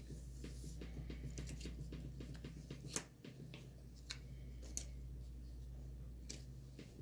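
Cardboard jigsaw puzzle pieces being handled, slid and set down on a wooden table: a run of small clicks and taps, the sharpest about three seconds in, over a steady low hum.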